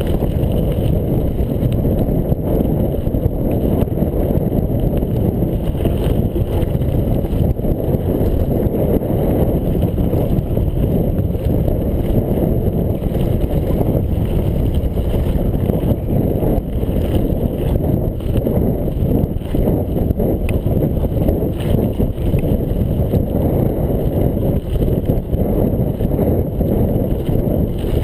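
Steady rumble of wind buffeting a chest-mounted camera's microphone, mixed with mountain bike tyres rolling over loose gravel. Small knocks and rattles from the bike run through it.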